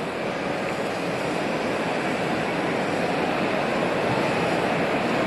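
Handheld gas kitchen blowtorch burning with a steady rushing hiss while it sears the surface of otoro tuna, slowly growing a little louder.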